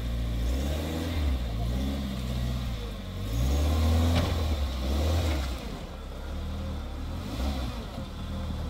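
Peugeot 405 sedan's engine revving up and down in several pulls as the car moves slowly over muddy dirt. The loudest rev comes a few seconds in, then the engine settles lower.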